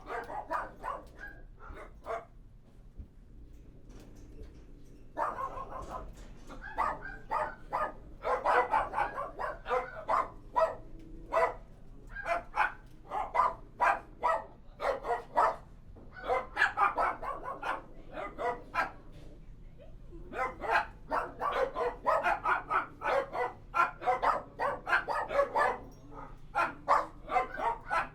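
Dogs barking repeatedly inside a kennel: a few scattered barks at first, then dense runs of barks from about five seconds in, with a short lull about two-thirds of the way through.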